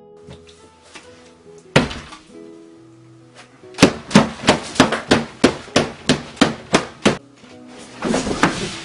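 About a dozen rapid thumps of an arm and hands slamming onto a plate and tabletop, three or four a second, after a single sharp thump earlier. A light plucked-guitar tune plays underneath.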